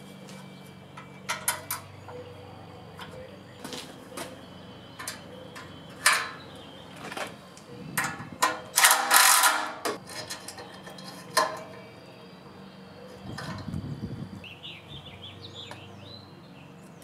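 Scattered metal clinks and knocks of hand tools and engine parts being handled while a small overhead-valve generator engine is put back together, with a louder rasping burst lasting about a second midway.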